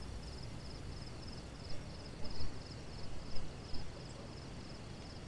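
Crickets chirping in a steady pulsing rhythm, about two trains of chirps a second, over a faint background hiss, with a few brief faint sounds between about two and four seconds in.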